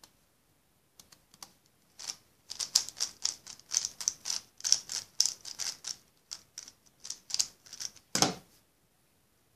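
3x3 speed cube being turned fast by hand: a quick, uneven run of sharp plastic clicks as the layers snap round. There is a louder knock about eight seconds in.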